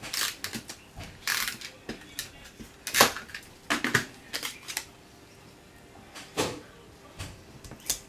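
Small cardstock panels being handled, slid and set down on a cutting mat: scattered light taps and paper rustles, the sharpest about three seconds in.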